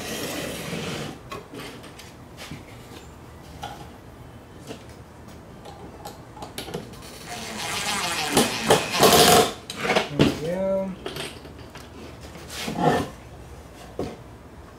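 Wooden birdhouse boards knocking and sliding as they are fitted together, then a DeWalt cordless drill/driver runs for a couple of seconds about eight seconds in, driving a screw into a pre-drilled hole.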